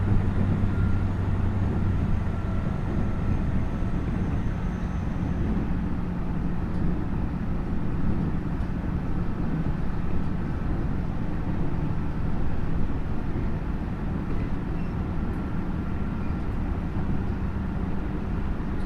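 Tokyu 5050 series electric train with a Hitachi IGBT inverter running at speed, heard from inside the car at its end: steady rolling and running noise with a low hum.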